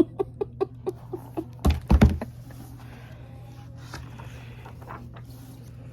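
A hardcover picture book being handled while its page is turned: a run of soft short taps, then two heavy thumps about two seconds in, over a steady low hum.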